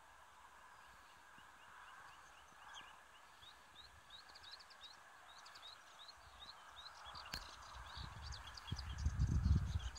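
Melodious warbler singing: a fast, rambling run of short high notes that starts a few seconds in and carries on. A low rumble builds near the end and is the loudest sound.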